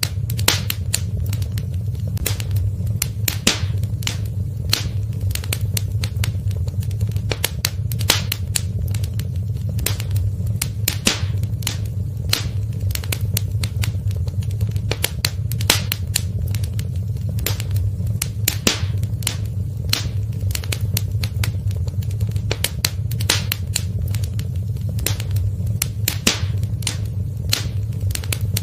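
Wood fire crackling in a fireplace: many sharp, irregular snaps and pops over a steady low rumble.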